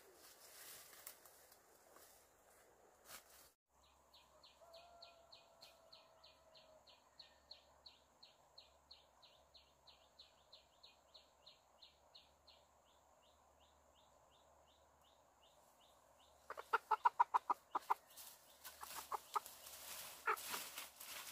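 A chicken squawking in a loud run of rapid, repeated calls late on, after a single sharp cry at the very start. In between there is a faint, steady high chirping at about four chirps a second.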